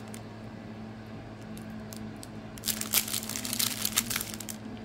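Small plastic bags of diamond painting drills crinkling as they are handled, a dense burst of rustling in the second half over a steady low hum.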